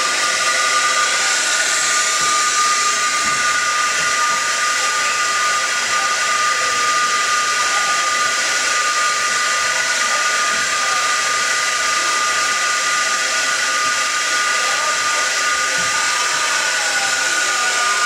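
Air-powered train whistle on a children's wooden play train blowing without a break, its switch stuck on: a loud steady hiss of rushing air with a held chord of whistle tones that never changes pitch.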